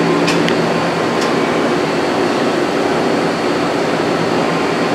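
Steady rushing background noise of a machine shop with a low hum underneath, and two faint clicks in the first second and a bit.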